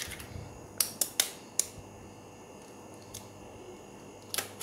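About half a dozen light, sharp taps and clicks, spaced irregularly, of eggshell and a metal spoon against a glass bowl as eggs are cracked into it.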